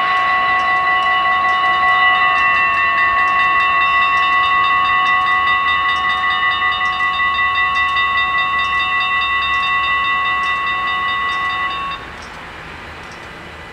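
Dutch AHOB level-crossing bells ringing continuously with a fast, even clang while the half-barriers lower. The ringing cuts off suddenly about twelve seconds in, as the barriers reach the down position.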